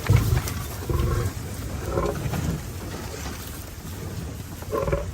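Lions growling and roaring in several short, loud bursts, with quieter gaps between them.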